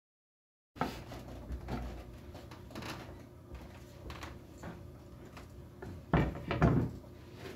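Wooden picture-frame moulding handled on a wooden workbench: light knocks and scrapes as it is lifted and moved, with a few louder wood-on-wood knocks about six seconds in as the frame is set down. The sound starts abruptly just under a second in.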